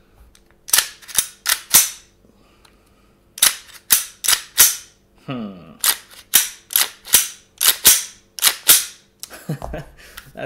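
Slide of a WE Glock 19 gas-blowback airsoft pistol with an SAI slide kit being racked by hand again and again, a run of sharp plastic-and-metal clacks in three quick series. The slide cycles freely through these racks without the outer-barrel lock-up jam it is being worked to reproduce.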